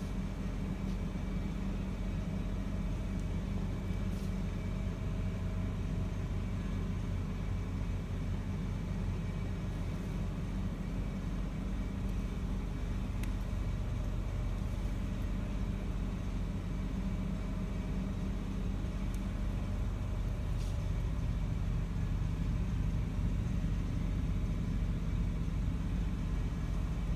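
Steady low rumble of a car driving, with road and engine noise continuous throughout, growing a little louder over the last few seconds.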